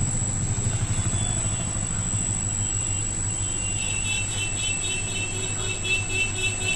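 Steady low electric hum of aquarium pumps, running evenly. About halfway through, a fast run of high pulsing chirps, about four a second, joins it.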